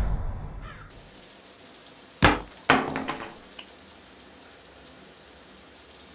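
Showers spraying water onto a tiled floor in a steady hiss, broken about two seconds in by two sharp knocks half a second apart. A music cue dies away in the first second.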